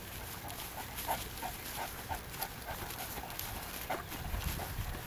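Soft, rhythmic footfalls, about three a second, of a person and a Great Dane trotting together over grass, over a low rumble.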